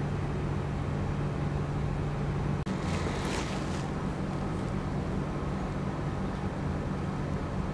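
Steady low room hum with no speech, cut by a momentary drop-out about two and a half seconds in and a brief soft hiss just after.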